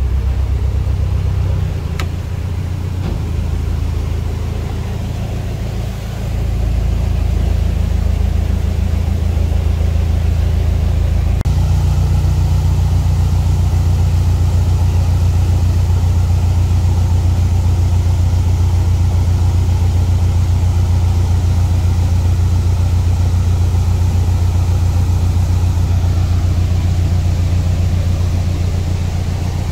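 Narrowboat diesel engine running steadily. It eases off a couple of seconds in, picks up again about six seconds in, and steps up to a louder, steady run at about eleven seconds.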